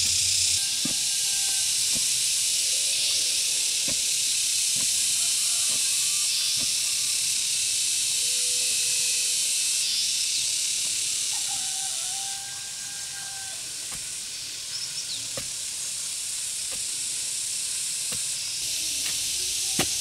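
Steady high-pitched hiss of an insect chorus, with a few soft knocks of a wooden planting stick jabbed into loose soil.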